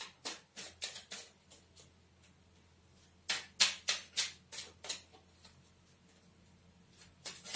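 Tarot cards being handled by hand: a series of sharp, irregular clicks and taps, a few near the start, a louder run of about eight from about three to five seconds in, and two or three more near the end.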